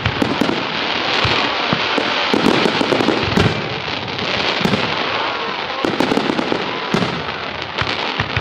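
Fireworks barrage: aerial shells bursting in rapid succession with a dense, continuous crackle of crackling stars, loud throughout.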